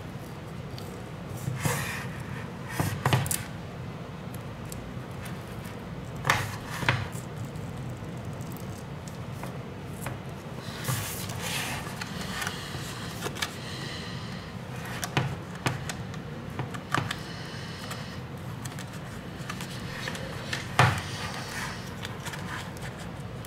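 Plastic pry pick and a plastic playing card scraping and clicking along the edge of an iPad's glass and frame, cutting through the adhesive that holds the touch screen, in scattered short scrapes with a sharp click near the end. A steady low hum runs underneath.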